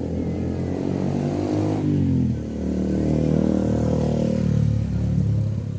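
An engine running steadily, its pitch sliding down shortly before two seconds in, then running on.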